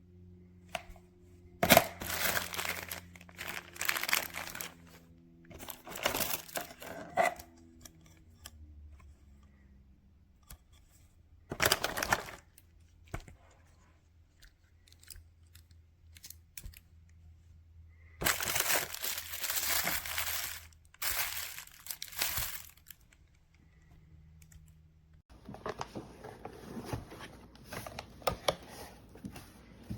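Several separate bursts of crinkling, tearing noise, each lasting from under a second to a couple of seconds, with quiet gaps and a faint low hum between them. The background changes abruptly near the end.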